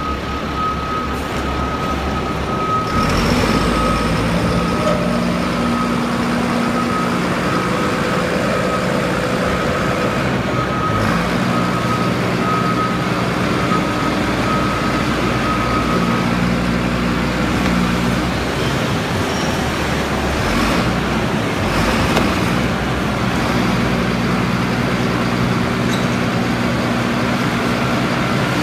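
2000 Peterbilt garbage truck's diesel engine running under load as its hydraulics tip the Amrep side-loader body to dump, the engine speed stepping up and down several times. A thin steady high whine runs through roughly the first half.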